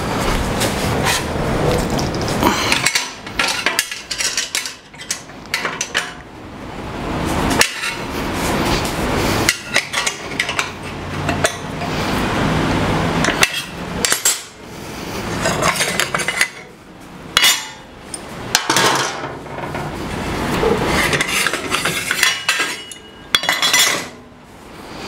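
Metal clinking, rattling and knocking of hand tools and fasteners as a fence rail is adjusted and bolted onto a table saw, with many sharp clicks and short scraping stretches.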